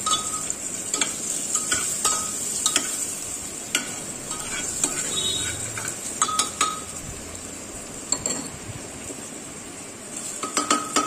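Chicken and vegetables frying in butter in an aluminium pressure cooker, stirred with a ladle: a steady sizzle under repeated sharp clinks and scrapes of the ladle against the pot, several in quick succession near the end.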